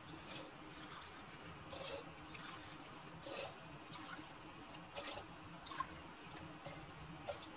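Water being poured by the tumblerful into a pressure cooker, in a series of short, faint splashing pours.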